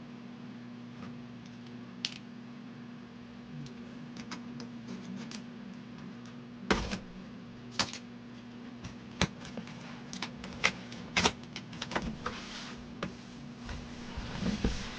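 Irregular clicks and knocks of hard plastic parts and packaging being handled, loudest about seven seconds in, with some rustling near the end, over a steady low hum.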